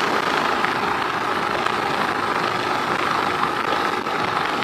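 Keeway RKS 100 motorcycle's small single-cylinder engine running steadily while being ridden at road speed, heard as a steady, even rush of engine and riding noise.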